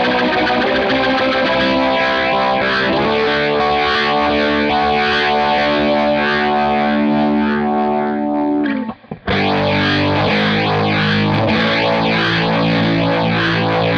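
Electric guitar played through a Boss RT-20 Rotary Ensemble rotary-speaker (Leslie) simulator pedal with its drive control turned up, giving overdriven chords with a rotating-speaker swirl. The held chords change every few seconds, with a short break about nine seconds in.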